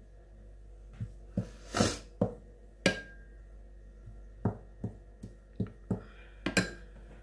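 Metal spoon knocking and clinking, about a dozen sharp taps with one brief ringing clink, while scooping flour-and-water paste.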